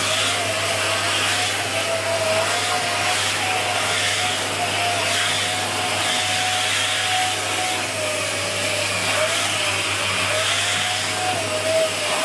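Dyson Big Ball Animal (CY23) cylinder vacuum cleaner running steadily while vacuuming stairs with its tangle-free turbo tool, the motor whine wavering slightly in pitch.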